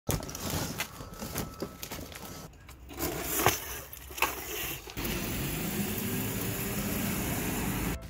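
Cardboard packaging and metal parts clattering as a small motorbike is unpacked, then a couple of sharp knocks. After that the small bike's motor runs steadily and climbs slowly in pitch as it speeds up, then cuts off suddenly.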